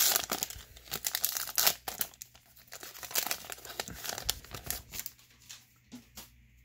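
Foil baseball-card pack wrapper being torn open and crinkled by hand, then the stack of cards slid out of it. The crinkling is loudest in the first two seconds and thins out near the end.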